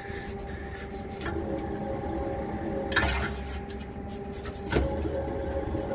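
Baldor direct-drive blower wheel turned by hand, its worn motor bearings scraping and rubbing, with a few knocks, the loudest about three seconds in. A steady hum of running equipment sounds underneath.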